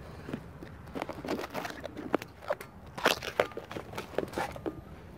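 Handling noise: irregular crunching clicks, scrapes and light knocks, loudest about three seconds in.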